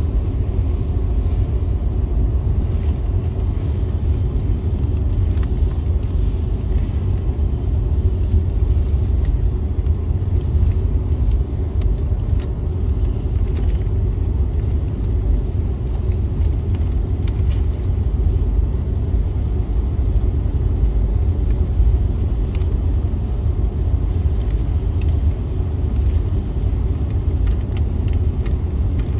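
Steady low road and engine rumble heard inside a car's cabin at highway speed, with faint scattered ticks of rain hitting the glass.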